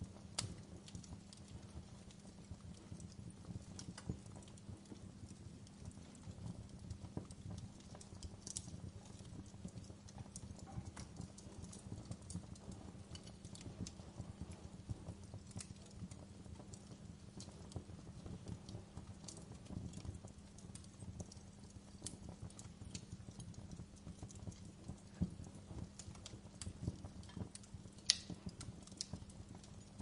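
Wood logs burning in an open fireplace, crackling with irregular small pops and snaps over a faint steady low hum. A sharper pop comes near the end.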